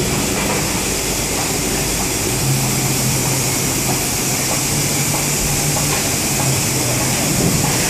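Large hydraulic injection moulding machine (a BOLE 1700-ton press) running in a factory hall: a steady mechanical noise with a high hiss, and a low hum that comes in about two and a half seconds in and drops away near the end.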